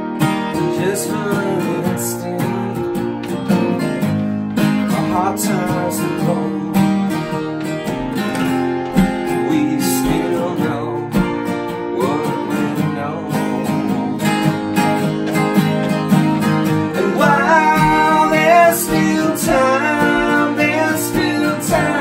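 Two acoustic guitars strumming an Americana song, with a man singing over them at times, the voice clearest in the last few seconds.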